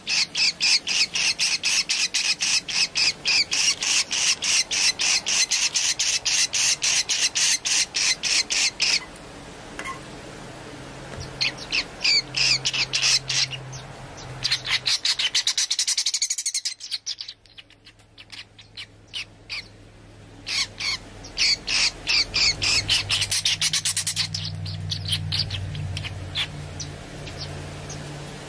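Hungry swiftlet chick begging in the nest. It makes a rapid run of sharp, clicking chirps, about four or five a second, with a break about a third of the way in and another past the middle, fading near the end. This is the hungry-chick call, 'ceklok', that swiftlet farmers imitate in their lure recordings.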